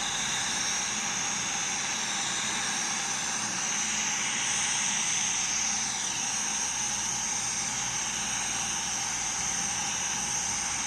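Electric welding arc running steadily on a pipe joint being welded in the 5G position: an even hissing crackle with no breaks.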